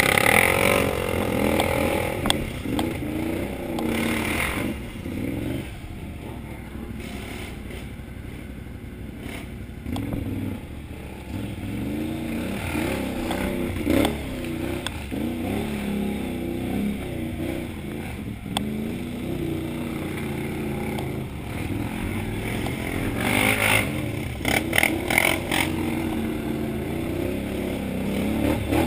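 Can-Am Outlander XMR 1000R ATV's V-twin engine running and revving up and down as it works through mud, with louder bursts of throttle near the start, about halfway in and again near the end. Clatter and scraping from the machine come with the revs.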